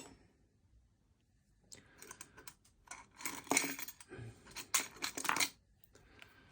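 Small metal lock-picking tools clinking and rattling as they are handled, with light clicks, after a quiet first second or so.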